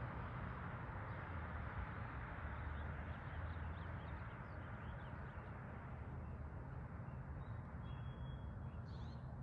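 Small birds chirping faintly over a steady low outdoor rumble. The rumble eases slightly over the first few seconds, and the chirps come in from about three seconds in.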